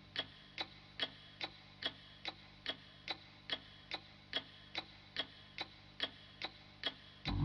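A steady ticking, about two and a half sharp ticks a second, left on its own as the music drops away. Fuller music comes back in near the end while the ticking carries on.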